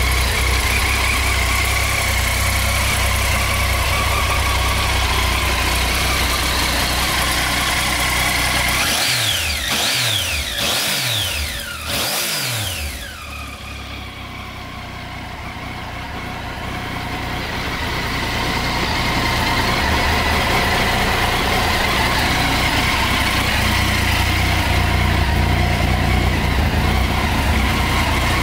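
Triumph Tiger 800's three-cylinder engine idling steadily, blipped four times in quick succession about nine to thirteen seconds in, the revs dropping back after each blip.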